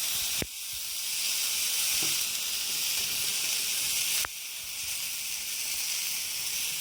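Garlic scapes sizzling on a hot, extra-thick (9 mm) iron griddle plate: a steady frying hiss, with two short clicks about half a second in and a little after four seconds.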